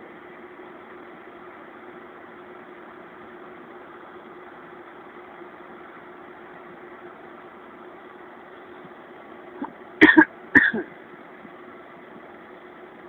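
Steady background hum with a constant low tone, broken about ten seconds in by two short, loud coughs half a second apart.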